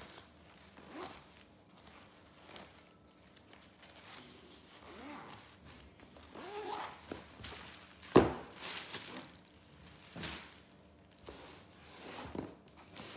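Nylon laptop backpack handled by hand: rustling and brushing of the fabric with zipper noises. One sharp knock about eight seconds in.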